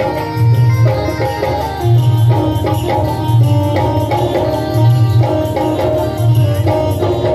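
A live bhajan band playing an instrumental passage: a keyboard melody over a steady drum beat, tabla-like in character, played on electronic drum pads.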